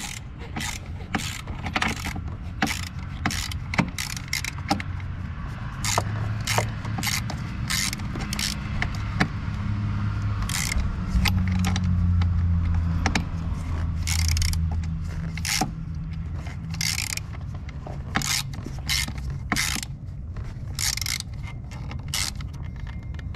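Hand ratchet clicking in short irregular runs as a small nut is run down by hand, with brief pauses between strokes. A low hum rises underneath the clicking in the middle.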